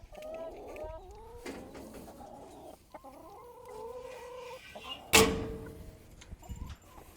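Chickens clucking, with drawn-out pitched calls through the first few seconds. About five seconds in comes one sharp, loud bang with a brief ring.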